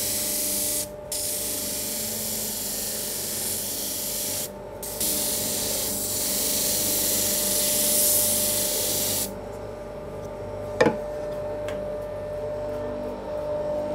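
An APTC disc sander's abrasive disc grinds a curved wooden block, a loud steady hissing rasp that breaks off twice for a moment as the wood is lifted from the disc. About nine seconds in the sanding stops and only the machine's steady hum carries on, with one sharp knock about two seconds later.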